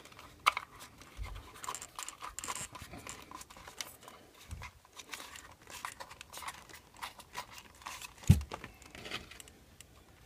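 Light clicks and taps of small plastic parts and screws being handled as the gear cover of an RC truck is fitted, with one louder knock about eight seconds in.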